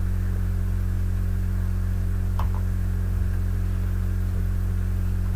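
Steady electrical mains hum picked up by the recording, with one faint click about two and a half seconds in.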